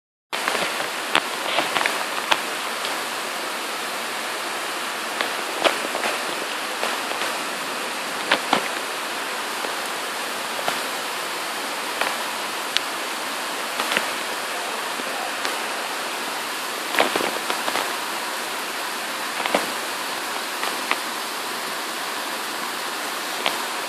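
Heavy rain pouring down steadily, heard through an open screened window: a dense even hiss with sharper drips and splats breaking through at irregular moments.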